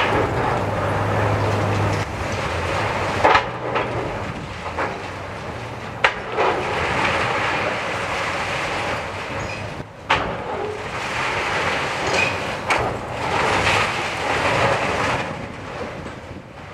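Komatsu hydraulic excavator demolishing a brick building: its diesel engine runs under surges of crunching, clattering brick and debris. Sharp bangs stand out about three, six and ten seconds in.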